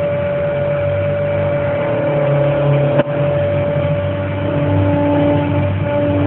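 CNC machine running: a steady mechanical hum with several whining tones, some shifting in pitch or starting partway through as it moves, and one sharp click about three seconds in.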